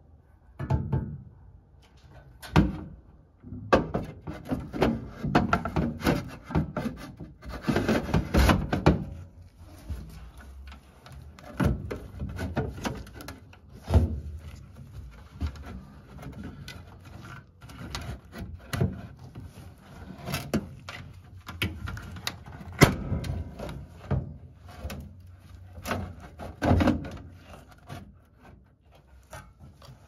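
Replacement draft inducer motor being fitted by hand into an Intertherm mobile home furnace cabinet: irregular clunks, knocks and scraping of the housing against the sheet-metal cabinet.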